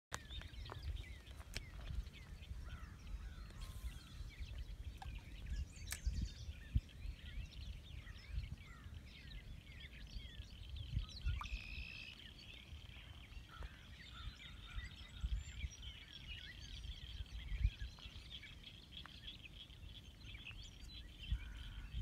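Many wild birds chirping and calling over one another, with a steady high-pitched trill joining about halfway through. Gusts of wind rumble on the microphone.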